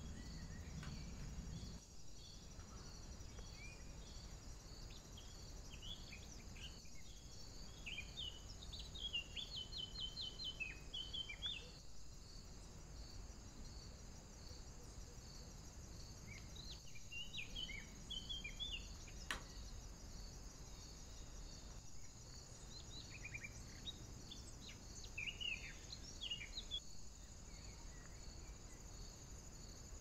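Songbird singing short phrases of quick, high notes in three bouts, about eight, sixteen and twenty-four seconds in, over a faint steady high-pitched hiss with evenly repeating chirps. A single brief click a little after halfway.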